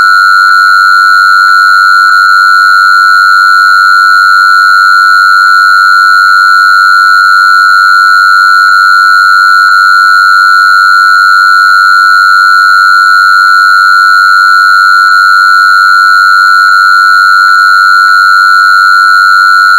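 Continuous synthesized tone, loud and unchanging in pitch, with fainter higher overtones above it, played as a healing frequency.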